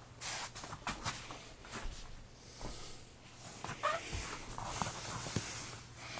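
A cat playing: irregular scuffles, quick taps and rustling, over a faint steady hum.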